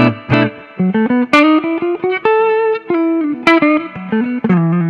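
Electric guitar playing a picked melodic phrase of single notes through a Dumble-style tube amp into a 2x10 cabinet with Celestion Greenbacks. The clean-to-lightly-driven tone carries spring reverb from an Eventide H9 and subtle compression and boost from a Bogner Harlow.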